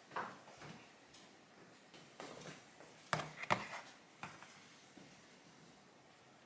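Quiet handling noises of objects being moved about: light rustles and taps, with two sharp knocks in quick succession about three seconds in.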